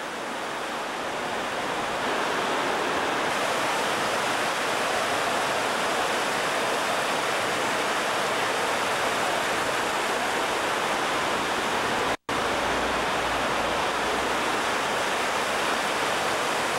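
White water rushing over rocks in a cascade or rapids, a steady, even rush of water. The sound drops out for an instant about twelve seconds in.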